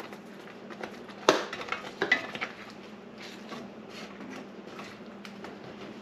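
Kitchen utensil sounds at a pot of thick sauce: one sharp click about a second in, a few quick knocks a second later, then fainter scrapes and taps as a wooden spatula stirs the sauce.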